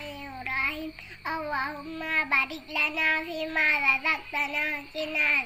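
A young girl singing alone, in phrases of long, level held notes.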